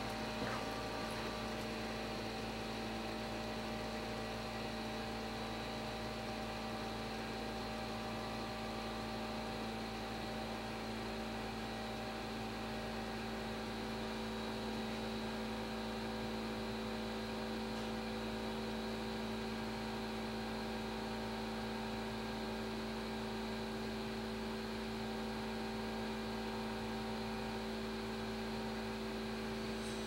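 Steady electrical hum made of several constant tones over a faint hiss; one of the higher tones fades out near the end.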